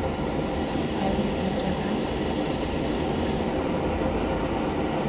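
Pot of fruit boiling on the stove for a home-made drink: a steady low rumble with no break.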